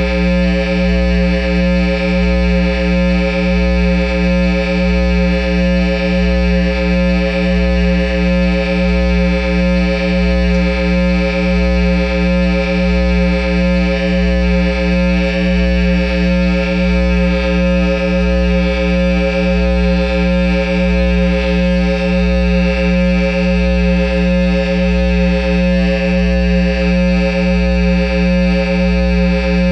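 Sustained electronic drone through a Line 6 amp head and Peavey speaker cabinet: a deep, loud tone with a stack of overtones, held steady with a slow, regular pulsing in the bass.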